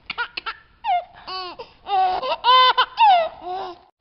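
High-pitched baby giggling and squealing in a string of short bursts, several squeals falling in pitch.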